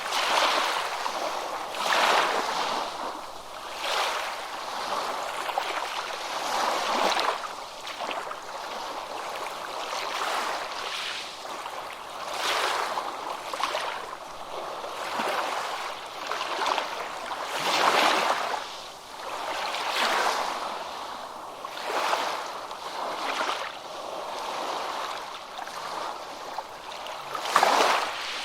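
Ocean surf on a beach: waves breaking and washing in. The sound is a steady rushing that swells and fades about every two seconds, with one of the strongest surges near the end.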